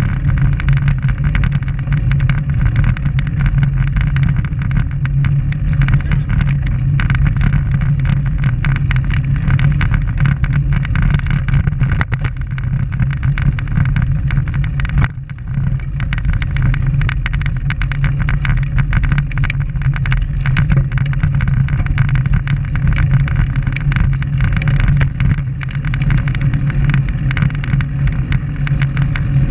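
Steady rumble of wind and road vibration picked up by a camera mounted on a road bike while riding on asphalt, with a strong low hum throughout. It dips briefly about fifteen seconds in.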